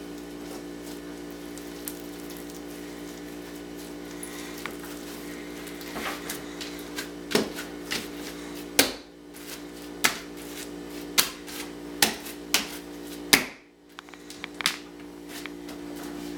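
Floam slime packed with styrofoam balls being squeezed and pressed by hand. It makes sharp pops and clicks, about one a second, that start around six seconds in. A steady hum runs underneath.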